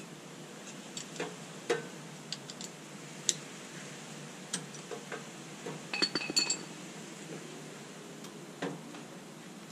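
Scattered small metallic clicks and clinks of tools and parts being handled while working on a car's rear disc brake, with a short cluster of louder clinks that ring briefly about six seconds in.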